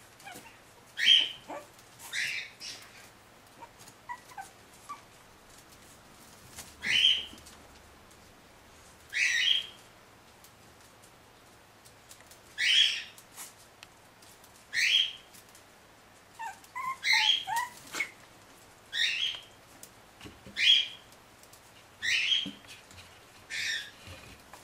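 Shih Tzu puppies giving short high-pitched cries, about a dozen of them spaced a second or two apart, with a quick run of several together about two thirds of the way through.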